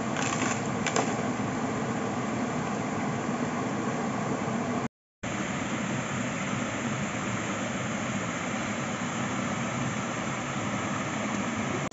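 Small waterfall and creek cascade rushing steadily, with a couple of light clicks about a second in; the sound cuts out for a moment near the middle.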